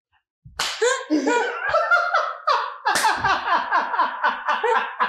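A man and a woman laughing loudly together in a quick run of ha-ha pulses, starting about half a second in after a brief silence.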